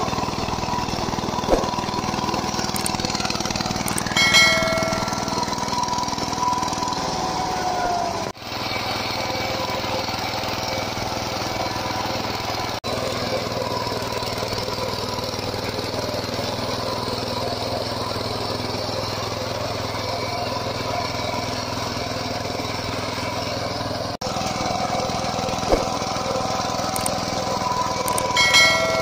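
VST Shakti 130 DI power tiller's single-cylinder diesel engine running steadily under load as its rotary tiller churns the soil. A short chime sounds about four seconds in and again near the end.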